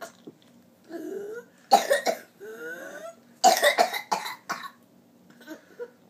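A young child's coughing fit from whooping cough (pertussis): two bursts of rapid, harsh coughs, about two seconds in and again at three and a half seconds, with a rising pitched sound before and between the bursts.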